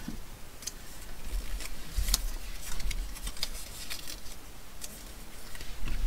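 Small paper circle tabs being folded and handled by hand on a desk: soft paper rustling with scattered light clicks and taps, the sharpest about two seconds in.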